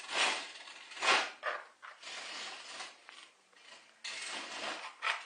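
Duct tape being pulled off the roll in several separate rasping pulls, each lasting up to about a second.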